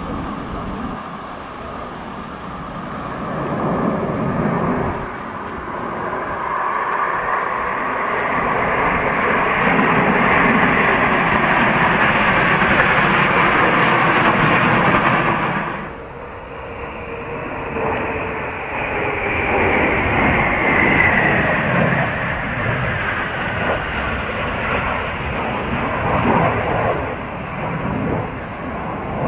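Loud jet aircraft engine noise, a steady roar with slowly shifting pitch that drops off abruptly about sixteen seconds in and then resumes.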